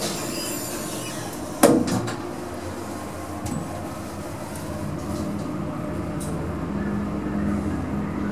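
Lux passenger lift being ridden: a sharp clunk with a short ring about one and a half seconds in, then a few lighter clicks, over a steady low hum that grows stronger near the end as the lift runs.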